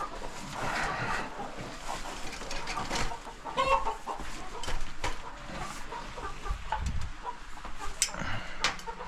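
Chickens clucking, with scattered knocks and scraping noises; a sharp knock about eight seconds in.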